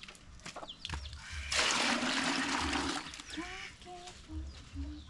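Water from an underground well gushing out of the pump spout for about a second and a half, followed by short clucks from a chicken.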